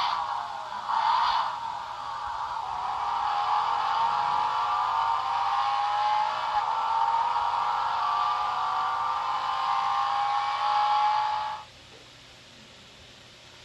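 Car engine sound rising slowly in pitch, as if accelerating, then cutting off suddenly near the end. A brief clattery burst comes about a second in.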